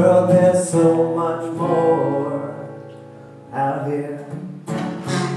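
Acoustic guitar strummed in a live folk song. A chord is left ringing and fades out about three seconds in, then the strumming starts again.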